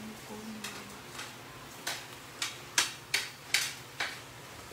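A metal kitchen utensil tapping and scraping against a plate of chopped garlic at the stove, about eight sharp clicks, louder in the second half.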